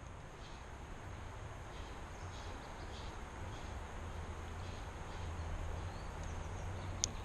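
Steady low rushing of river water, with a single sharp click near the end.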